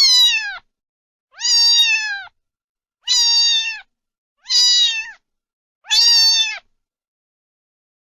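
A domestic cat meowing five times, one meow about every second and a half, each call dropping in pitch at its end.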